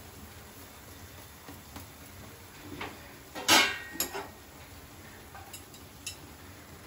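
A cooking spatula set down on a steel plate with a clatter about halfway through, then a few light clicks of utensils being handled on the plate.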